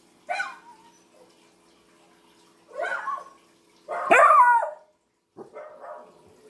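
A dog barking four times, a second or two apart, the third bark the loudest and longest, with a falling pitch.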